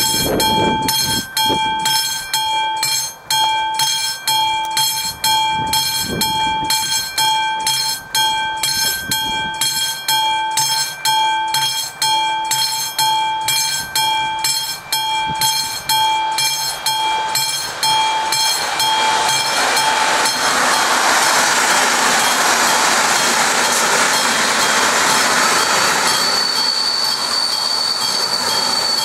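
AŽD 71 level-crossing warning signal's classic electric bell ringing in a steady rhythm, warning of an approaching train. About two-thirds of the way through, the noise of a train passing over the crossing rises and drowns it out, and a steady high squeal joins near the end.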